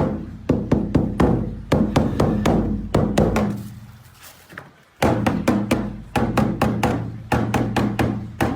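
Background music with a steady percussive beat over low sustained notes. It fades out briefly just after the middle and then comes back in.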